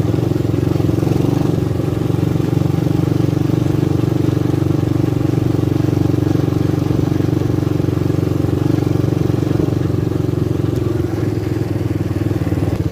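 250cc Lida ATV engine running at a steady speed while riding: a continuous, even drone with no revving.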